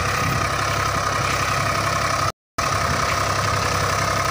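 SAME 603 tractor's 60 hp diesel engine running steadily while pulling a tine cultivator across a field. The sound cuts out for a moment a little over two seconds in, then carries on the same.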